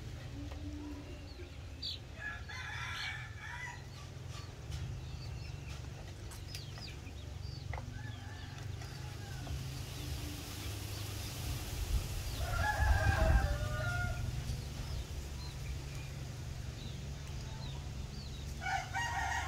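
Chickens clucking and calling in three bouts, the loudest and longest about two-thirds of the way through, with faint short chick-like chirps in between.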